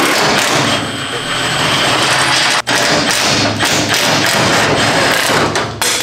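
Cordless impact wrench hammering on the roll cage's mounting bolts, with a brief break about two and a half seconds in.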